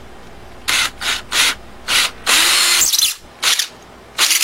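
Small handheld grinder grinding on the metal of an old mortise lock. It fires in four short bursts, then runs twice for about a second at a time, its motor hum rising as it spins up.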